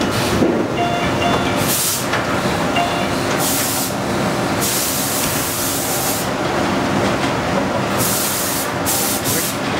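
Automatic die-cutting machine running with a steady mechanical noise, broken by repeated bursts of air hiss lasting from a fraction of a second to about a second and a half. A faint short beeping repeats a few times in the first three seconds.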